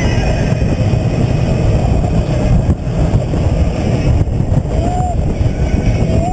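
Wind buffeting the mounted camera's microphone over the rumble of a steel roller coaster train running along its track at speed, with a rider's short yell about five seconds in.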